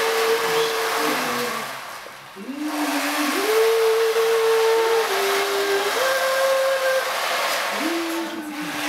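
A slow melody of long held notes, each sliding into the next, over a steady hiss; it breaks off briefly about two seconds in.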